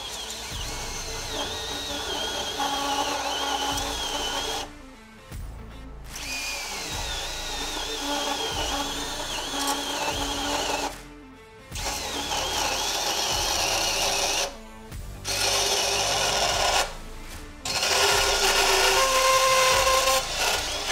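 Milwaukee compact cordless bandsaw cutting through 1 5/8-inch steel strut channel: the motor runs and the blade whines on the metal. It comes in several stretches broken by short drops, with background music underneath.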